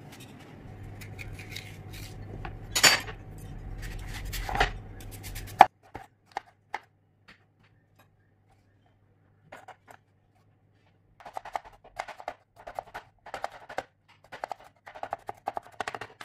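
Chef's knife cutting raw green Totapuri mango on a wooden chopping board: a few scattered knife strikes as the flesh is sliced off, then, after a quiet gap, quick repeated chops, about three a second, as the slices are diced into small pieces.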